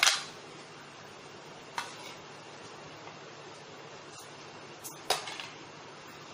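China plates and glass bowls clinking and knocking as dishes are handled and set down: a sharp clink at the start, another a little before two seconds and a short cluster around five seconds, over a low steady hum.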